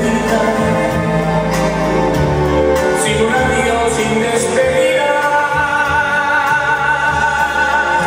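Loud dance music with a singing voice, playing steadily for competition dancing.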